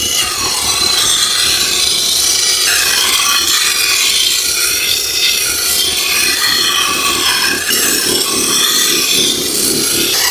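Steel sword blade being ground on a powered sharpening machine: a continuous abrasive grinding whose pitch wavers up and down as the blade is worked against the abrasive.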